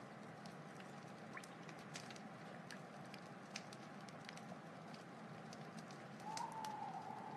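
Wood fire crackling: a steady hiss with scattered sharp pops and crackles. Near the end a faint wavering whistle joins in.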